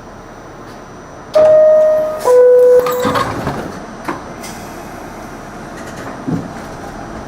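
R68 subway car's door-closing chime, a loud descending two-note ding-dong, followed by the sliding doors shutting with a knock and rattle. A further thump comes near the end.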